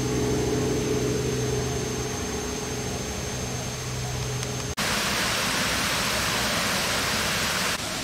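A steady low hum with a faint high whine for nearly five seconds, then, after a sudden cut, a steady rushing hiss.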